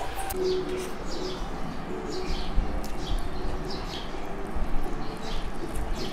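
A dove cooing over and over in short low notes, with small birds chirping quickly.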